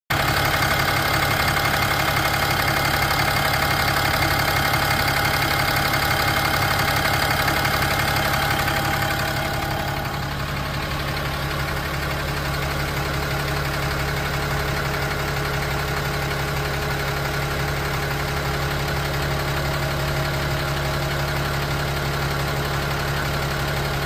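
Ram 6.7 L Cummins inline-six turbo-diesel idling steadily with a ticking from the engine, which the owner puts down to the CP3 fuel injection pump being out of phase. About ten seconds in the sound becomes duller, as it is picked up from the front wheel well instead of the open engine bay.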